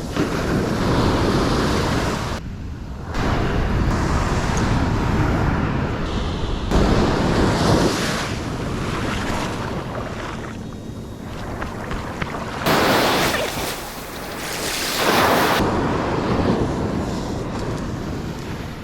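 Ocean surf washing onto a sandy beach, with wind buffeting the microphone; the noise swells and ebbs, loudest in a surge about two-thirds of the way through.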